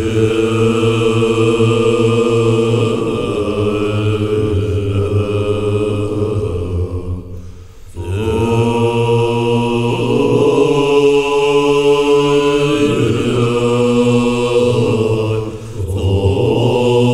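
Tibetan Buddhist monks chanting together in low voices, long held phrases with short breaks for breath about seven and a half seconds and fifteen and a half seconds in.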